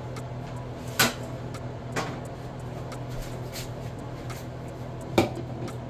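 Kitchen handling sounds: a few sharp clacks, a loud one about a second in, a softer one at two seconds and another loud one near the end, over a steady low hum.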